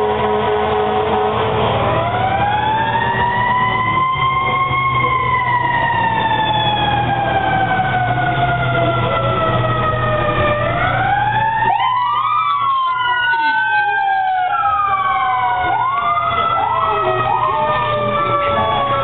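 Fire truck sirens wailing, several overlapping: one winds up about two seconds in and falls slowly in pitch, another rises near the middle, and a few quick whoops come near the end, over a steady low engine hum.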